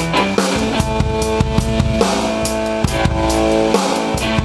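A drum kit and an electric guitar jamming together: a steady beat of kick drum, snare and cymbal strokes under held guitar chords that change every second or so.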